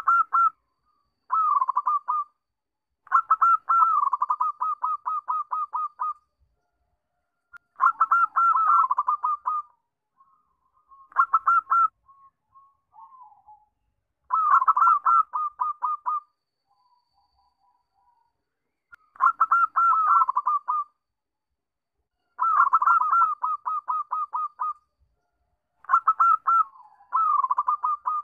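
Zebra dove (perkutut) singing: about nine phrases of quick, staccato cooing notes, each phrase a fast run of short notes lasting one to three seconds, with short pauses between phrases.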